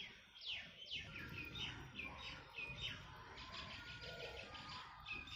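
Birds chirping faintly: a series of short, falling whistled notes, with a quick run of rapid notes in the middle.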